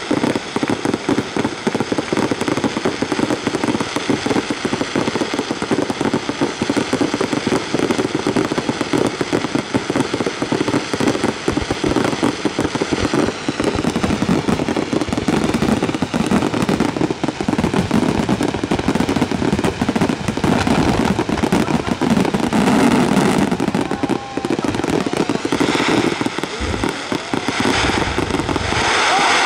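A rapid, unbroken barrage of aerial firework shells bursting, a massed starmine salvo. Dozens of reports and crackles overlap with no gap between them.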